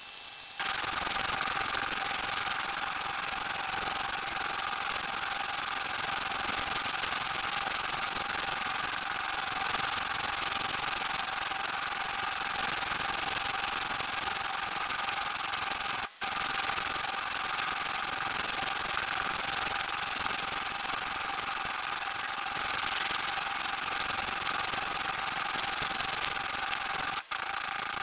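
Whirlpool WTW4900BW impeller washing machine in its wash cycle, heard from inside the tub: a steady rubbing, churning noise as the impeller turns the wet load. It drops out briefly twice, in the middle and near the end.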